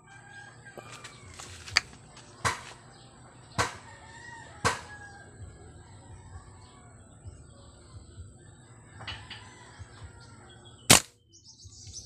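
A single sharp rifle shot a little before the end, the loudest sound, which brings the bird down from the tree. Earlier there are four quieter sharp clicks about a second apart, with faint bird calls.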